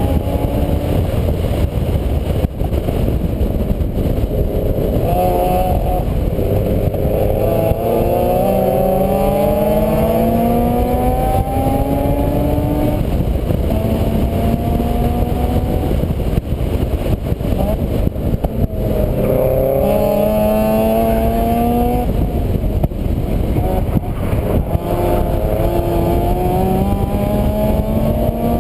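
A vehicle engine accelerating: its pitch climbs in several runs and drops back between them, as with upshifts through the gears. Heavy wind rumble on the microphone runs underneath.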